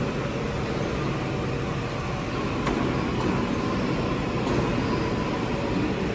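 Steady drone of machinery in an injection-molding workshop: a constant low hum with a few faint steady tones over even noise.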